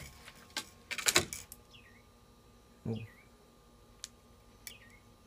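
Fishing rod and reel being handled and knocking against something: a few light clicks, then a sharp clatter about a second in. Faint bird chirps come a few times.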